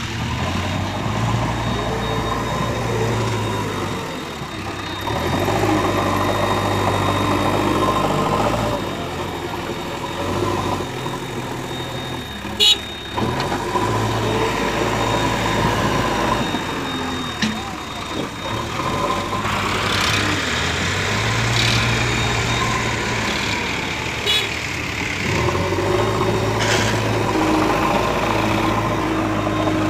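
Diesel engine of a JCB 3DX backhoe loader running and revving up and down in spells as it digs and loads soil, with tractor engines idling alongside. One sharp clank a little before halfway.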